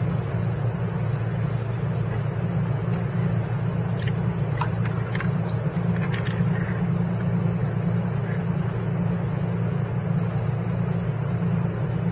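Steady low drone of a boat's engine running, with a few faint clicks about four to six seconds in.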